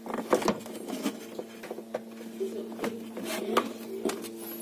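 Irregular sharp clicks and taps of plastic refrigerator parts and a cable connector being handled and fitted, over a steady low hum.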